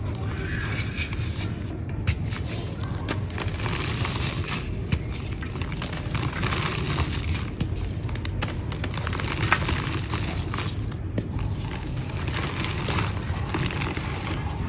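Lumps of dried yellow mud crumbling and breaking apart, a steady crackling full of small sharp snaps.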